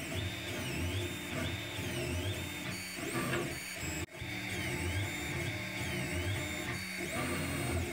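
Monoprice Select Mini 3D printer printing: its stepper motors whine in tones that glide up and down as the print head moves, over a steady hum. The sound cuts out for an instant about four seconds in.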